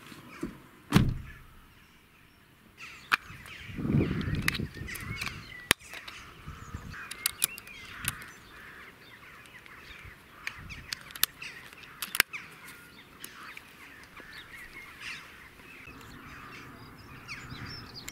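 Birds calling outdoors, with crows cawing among them. Over this come a loud thump about a second in, a heavier rustle near four seconds, and a scatter of sharp clicks and knocks as shooting gear is handled.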